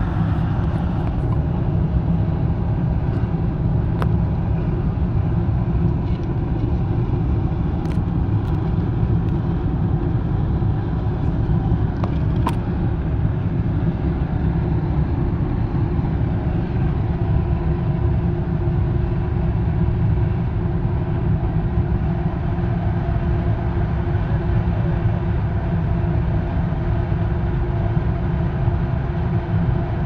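Homemade diesel-fired foundry furnace burning at full heat while melting iron: a steady low roar with an even hum running through it.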